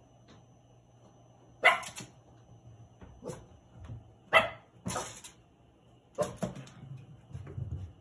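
Cavalier King Charles Spaniels barking: a handful of short, separate barks, the loudest about two seconds in and again just past halfway, with a quick pair of barks a little after six seconds.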